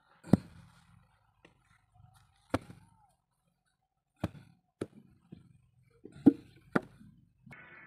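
Sharp thumps of a wooden hand mould and wet clay being knocked down on hard ground as mud bricks are hand-moulded: about six irregular knocks, the loudest near the start and about six seconds in.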